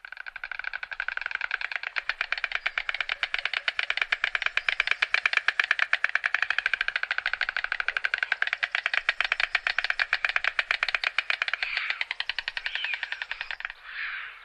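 White stork clattering its bill: a long run of rapid clicks that tapers off near the end.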